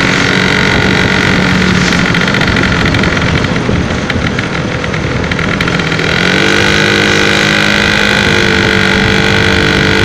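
Suzuki RC80's two-stroke single-cylinder engine running steadily under way. Its note thins out in the middle and comes back at a slightly higher, steady pitch about six seconds in.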